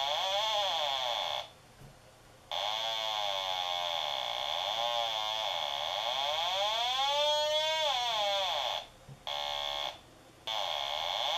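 Gakken mini theremin played by hand: a buzzy electronic tone that wavers and slides up and down in pitch, sweeping high and back down about two thirds of the way in. It cuts out twice for about a second.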